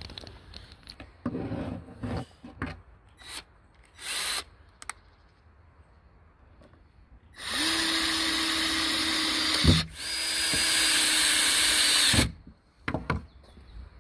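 Metabo cordless drill-driver driving a screw into a wooden tabletop: the motor runs steadily with a constant whine in two runs of about two seconds each, with a short break and a knock between them. Scattered handling clicks and knocks come before it.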